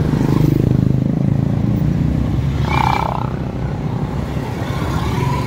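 Small commuter motorcycle engine running at low speed, heard from the rider's seat, easing off about halfway through as the bike slows to park. A short high-pitched note sounds about three seconds in.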